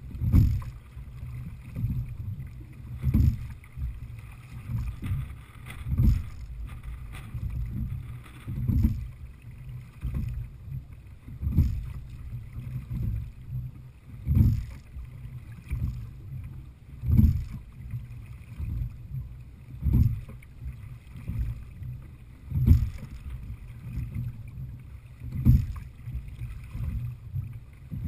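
Heritage 18 open-water rowing shell being sculled at a steady pace: a knock and rush of water with each stroke, about one every three seconds, over a steady low rumble of wind on the microphone.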